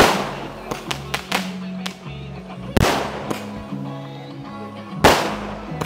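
Background music with a steady bass line, broken by three sharp, loud bangs that each ring out briefly: one at the start, one near the middle and one near the end.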